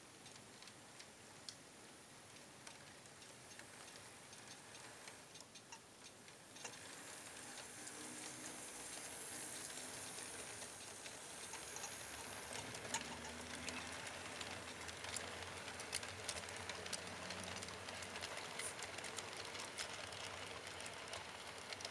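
HO-scale model train rolling along the layout track: light, irregular clicking of the wheels over the rail joints with a thin rolling hiss. It grows louder about six or seven seconds in as the freight cars pass close by.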